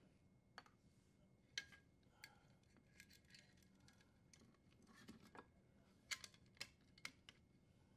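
Faint, scattered clicks and light taps as a dishwasher's sheet-metal junction box and its power wires are handled, with the sharpest about one and a half seconds and six seconds in.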